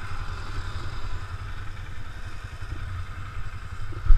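ATV engine idling steadily close by, a low uneven rumble. A single dull thump comes right at the end.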